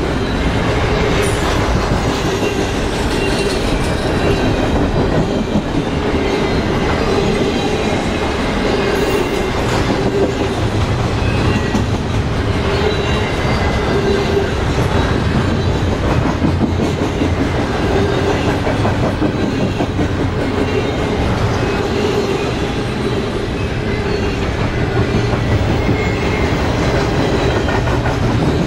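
Double-stack container well cars of a freight train rolling past: a steady rumble and clatter of steel wheels on rail, with faint wheel squeals coming and going.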